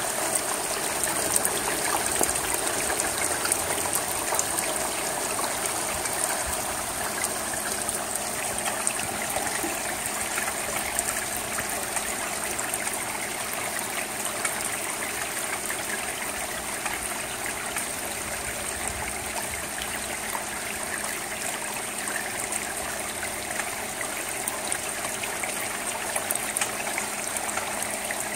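Steady rain falling on a wet asphalt-shingle roof and its gutter: a constant rushing hiss with a dense, irregular patter of drops.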